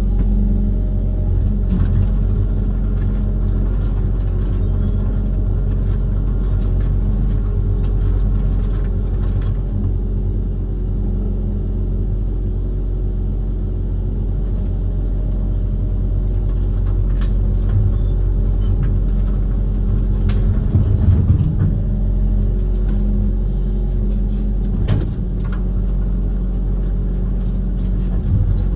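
Diesel engine of a Kobelco SK130-based amphibious excavator running steadily under working load, with occasional short knocks and clanks from the machine.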